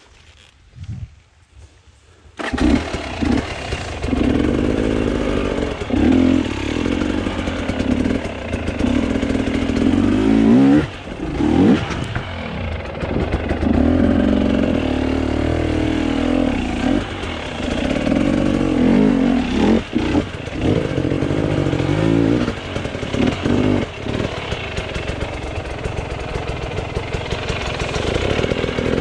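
Enduro dirt bike engine starting suddenly about two seconds in, then running and revving up and down at low speed, with a few brief drops in revs.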